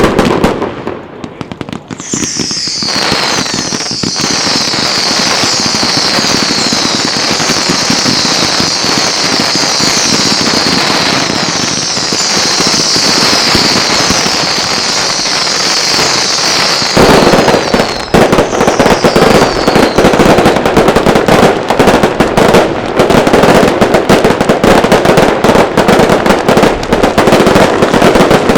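Fireworks: a burst of bangs, then from about two seconds in a dense chorus of whistling fireworks, each whistle falling in pitch, over steady crackling. About seventeen seconds in, a loud, rapid barrage of bangs and crackling takes over as the whistles die away.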